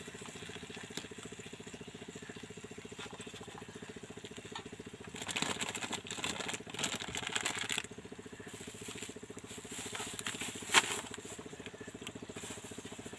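A small plastic bag of salt crinkling in the hands for about two seconds midway, over the steady hum of a small engine running. Near the end there is one sharp click, the loudest sound.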